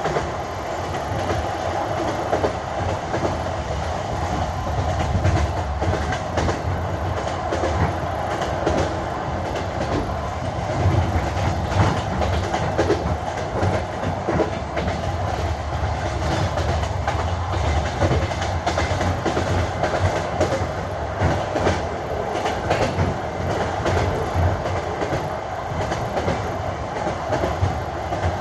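Train wheels clacking over rail joints in an uneven run of knocks, over the steady low rumble of a moving railway carriage.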